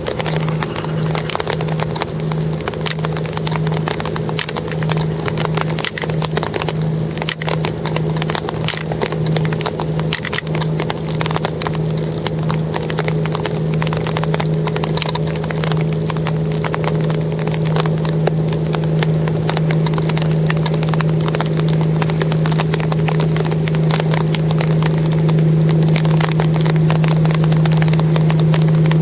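Small wooden fishing boat's engine running with a steady low drone, its level pulsing slightly at first and then evening out, while raindrops tap irregularly on the boat.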